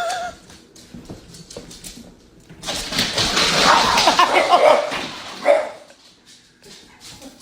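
A dog barking and whining: a short call at the start, a louder, rougher stretch of noise from about three to five seconds in, and another short bark about five and a half seconds in.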